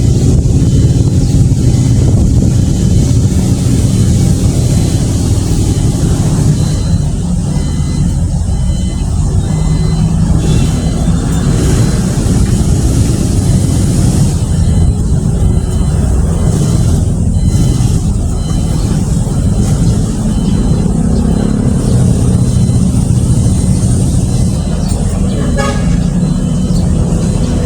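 Steady engine rumble of a moving vehicle, loud and continuous.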